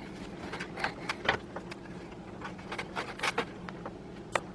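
An 8-pin CPU power cable being worked into its motherboard socket: scattered plastic clicks and cable rustling as the connector is handled and pushed home, with one sharper click near the end.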